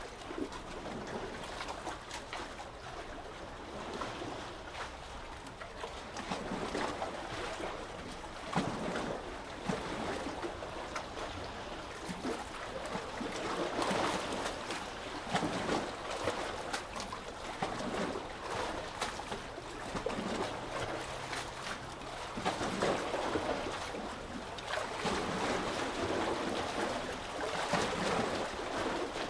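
Sea waves lapping and splashing, with many small splashes, swelling louder and easing every few seconds.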